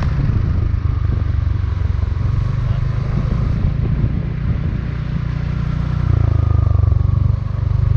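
Riding on a motorcycle: a steady engine with heavy wind rumble on the microphone, which grows louder about six seconds in.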